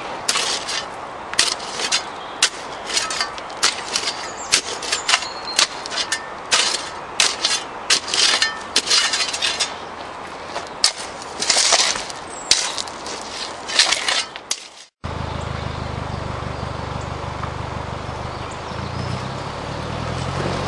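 A shovel digging into loose gravel, with repeated irregular scrapes and crunches of stones as the blade bites and the gravel is thrown. After an abrupt cut about 15 seconds in, 4x4 engines run steadily during the tow recovery.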